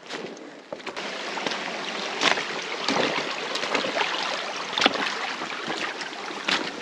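River water rushing and splashing, with a few sharper splashes standing out.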